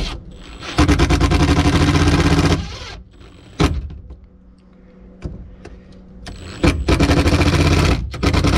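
Cordless drill running at the rearview-mirror mounting bracket, driving screws in two bursts of about two seconds each, one about a second in and one near the end. Short sharp clicks and knocks fall between the bursts.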